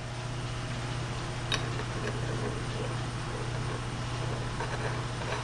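A rotary tool running steadily with a low hum, spinning a rotary burr that trims a leather seal too tight in a bearing housing, with one short click about a second and a half in.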